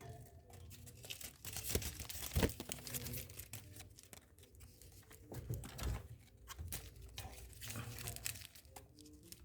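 Faint rustling and crackling handling noise over a low rumble, irregular and close to the microphone.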